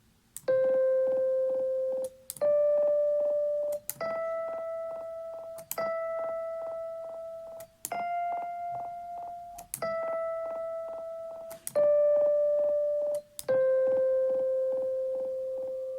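MacBook Pro 16-inch speakers playing a simple melody of eight sustained keyboard-like notes that step up in pitch and back down. Each note carries a regular popping, several sharp clicks a second: the popping fault of the laptop's audio.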